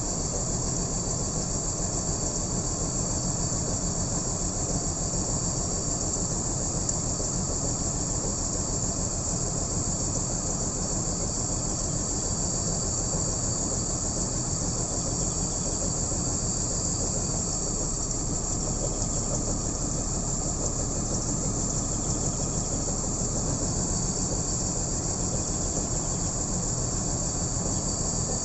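BMW M54B30 3.0-litre straight-six idling steadily with a misfire that gives it a bad idle, with a steady high-pitched hiss over the engine note.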